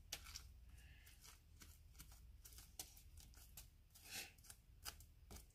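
Faint, irregular scraping of a metal spoon against the stringy flesh of a halved spaghetti squash as the seeds are scooped out, with a slightly longer, louder scrape about four seconds in.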